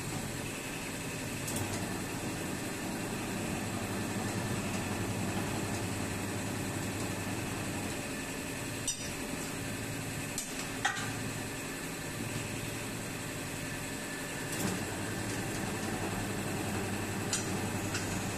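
Tyre-changer machine running with a steady hum while a steel tyre lever is worked around a steel wheel rim to pry off the tyre bead, giving a few sharp metallic clinks.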